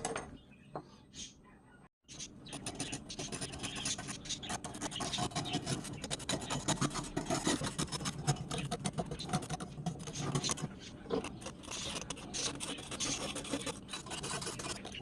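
Rusty steel pliers being scraped by hand, a fast run of rough strokes that starts about two seconds in and keeps going.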